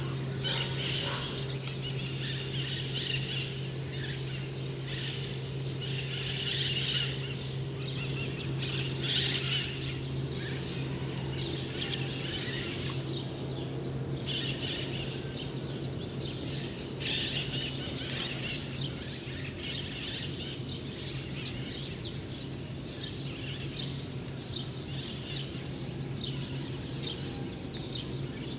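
Dawn chorus of many birds chirping and calling over one another, swelling in louder waves every few seconds, over a steady low hum.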